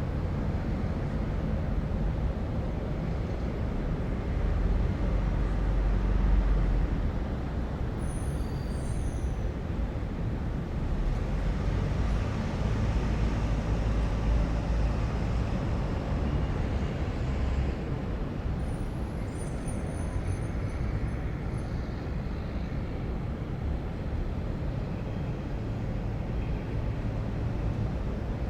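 City ambience: a steady rumble of distant road traffic. Brief high chirps come through twice, about a third and two-thirds of the way through.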